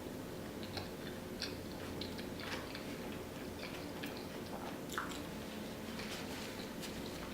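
A person chewing a slice of deep-dish pizza, with scattered soft mouth clicks and smacks and a slightly sharper click about five seconds in.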